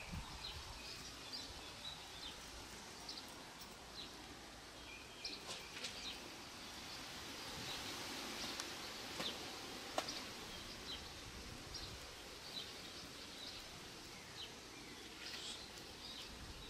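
Faint field ambience: scattered short bird chirps over a steady background hiss, with one sharp click about ten seconds in.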